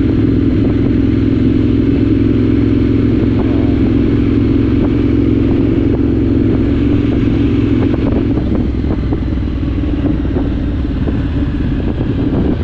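Triumph Scrambler 900's parallel-twin engine running steadily at cruising speed while riding, with wind and road noise over it. The level eases slightly in the second half.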